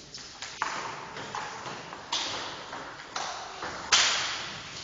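Table tennis rally: the ball clicks off paddles and the table about every half second, each hit echoing in a large hall. The loudest, hardest hit comes about four seconds in.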